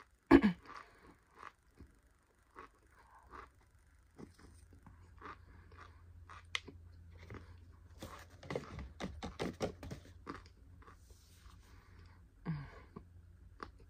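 Mouthful of cornstarch being crunched and chewed. There is a sharp knock about half a second in, scattered crunches after it, and a dense run of crunches from about eight to ten seconds in.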